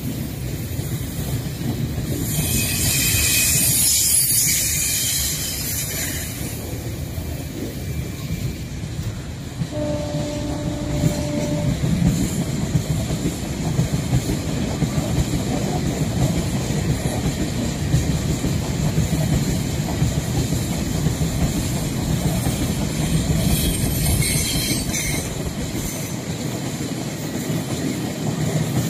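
Loaded freight wagons, open gondola cars and then tank cars, rolling past close by: a steady heavy rumble with wheel clatter over the rail joints. High-pitched wheel noise swells between about two and six seconds in, and a brief steady horn note sounds about ten seconds in.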